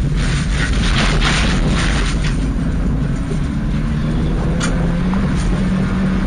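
Subaru Impreza rally car's flat-four engine running hard at speed on gravel, heard inside the cabin, with steady road rumble and sharp clicks of stones striking the car, densest in the first couple of seconds. The engine note climbs a little in the second half as the car accelerates.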